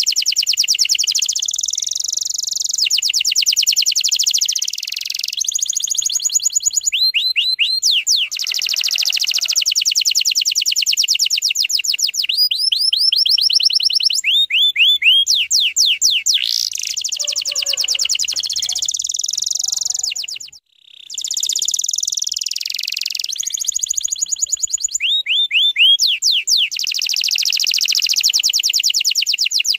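Domestic canary singing continuously in fast, tight trills and rolls of rapidly repeated high notes, with a short pause about two-thirds of the way through.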